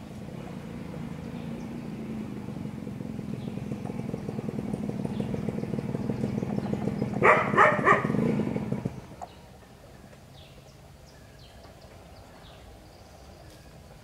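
A motor engine hum, steady and low, that grows louder over about eight seconds and then cuts off suddenly about nine seconds in. Near its peak comes a loud burst of four short, sharp sounds. Faint, short high bird chirps are heard in the quieter stretch that follows.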